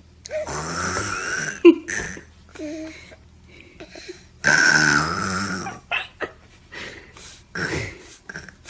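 Baby making two long, raspy, burp-like vocal noises, each about a second long and about four seconds apart, with shorter little sounds in between and after.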